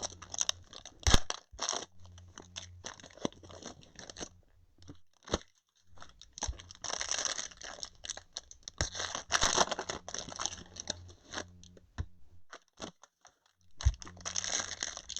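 Trading-card pack wrappers being torn open and crinkled, with cards handled and tapped, in irregular bursts with a couple of short pauses.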